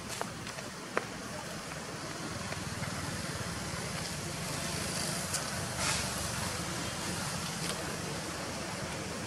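Steady outdoor background noise with a low hum, like distant traffic, and a few faint sharp clicks, one about a second in and another about six seconds in.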